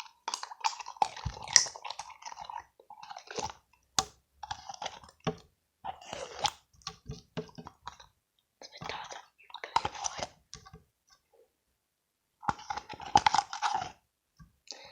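Slime being squeezed and worked with the fingers, wet crackling and clicking in irregular bursts, with a pause of about a second and a half near the end.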